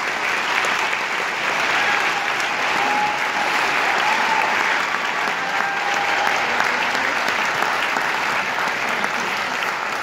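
Large concert-hall audience applauding, a steady dense clapping that holds at full strength.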